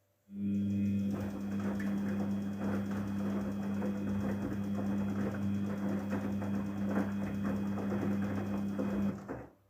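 Daewoo DWD-FT1013 washing machine running in its rinse cycle: a steady electric hum with water churning over it, starting just after the beginning and cutting off shortly before the end.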